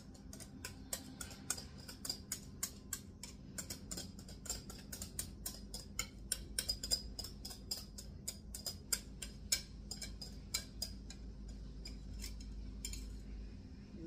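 A utensil ticking and clicking against a glass mixing bowl as cake batter is worked, several light irregular clicks a second, thinning out near the end.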